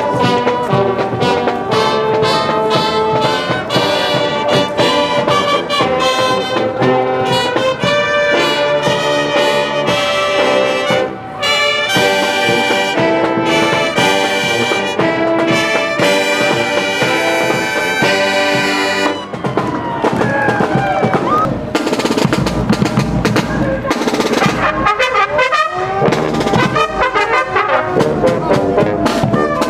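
Marching brass band of trumpets and sousaphones playing a tune as it passes. About 19 seconds in, the held brass notes break off and drumming comes to the fore.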